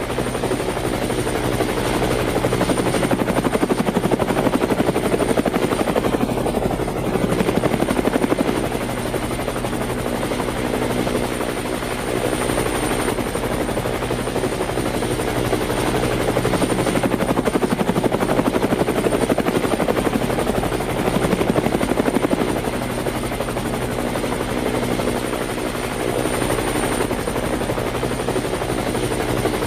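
Toy helicopter's helicopter sound running steadily with a fast rotor chop and a thin high whine over it.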